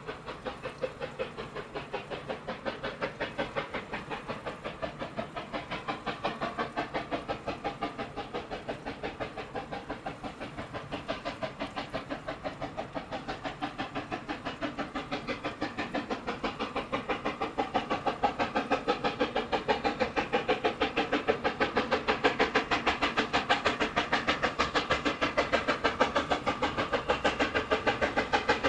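Steam locomotive working a train, its exhaust beats evenly spaced at about three to four a second and growing louder in the second half as it approaches.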